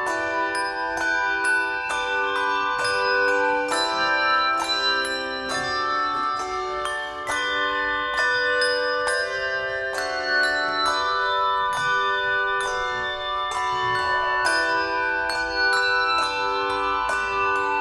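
Handbell choir playing a piece of music: tuned brass handbells struck in quick succession, several notes sounding together and ringing on over one another.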